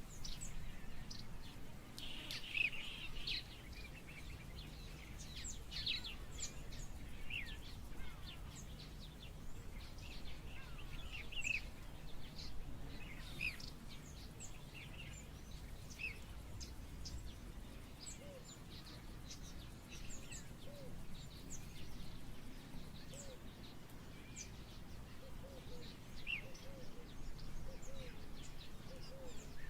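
Birds chirping: many short, quick calls scattered throughout, over a steady low background rumble.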